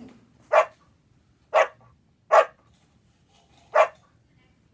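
A dog barking: four short, sharp barks spaced about a second apart.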